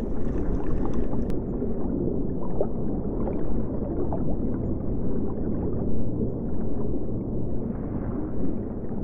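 Underwater ambience: a steady, muffled low rushing of water, with scattered bubbling from scuba divers' exhaled air. A click comes about a second in, after which the higher hiss drops away.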